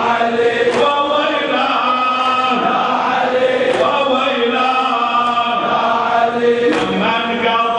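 Men's voices chanting a raddadiya, a Shia lamentation chant, in a slow melody with long held notes.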